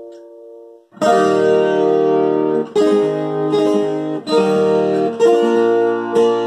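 A handmade viola caipira, the Brazilian ten-string guitar with a solid spruce top, curly maple back and sides and nickel steel strings, being played. A quiet held chord fades out, and after a brief pause a run of plucked chords starts about a second in, changing every second or so.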